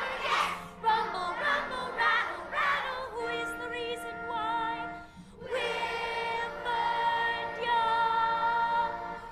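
A woman leading a class of children in singing, a slow song of long held notes with a wavering vibrato, broken by a short pause about five seconds in.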